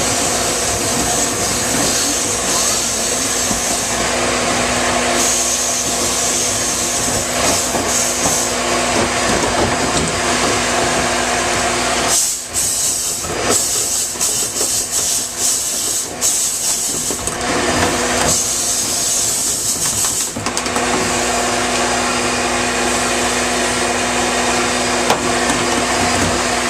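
Vacuum cleaner motor running steadily with a hum and a rushing hiss while lint is cleared from a dryer vent; from about twelve to twenty seconds in, the sound thins and wavers unevenly before settling back.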